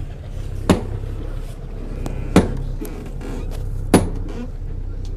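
Three sharp hammer blows about a second and a half apart, the second loudest, over a steady low hum.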